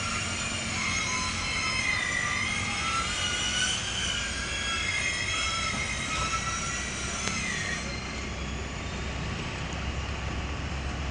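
Crane engine running under load while lowering a mini backhoe into a pit, with a high, wavering whine over the low engine drone. The whine stops about eight seconds in, leaving the engine drone.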